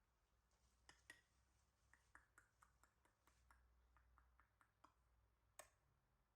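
Near silence: quiet room tone with a low hum and faint, scattered small clicks, the most distinct a little over five seconds in.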